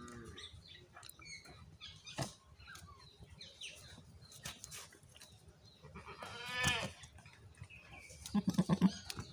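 Goats calling: one loud bleat about six and a half seconds in, then a fast stuttering run of low grunts near the end, the blubbering a rutting buck makes while courting a doe.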